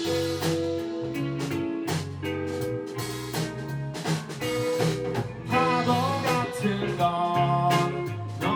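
A band playing live: guitar chords over a drum kit's steady beat, with a voice singing from about five and a half seconds in.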